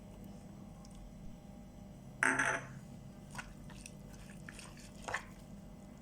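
Crunchy coleslaw of shredded raw cabbage being bitten and chewed: one loud crisp crunch about two seconds in, then a few softer crunches.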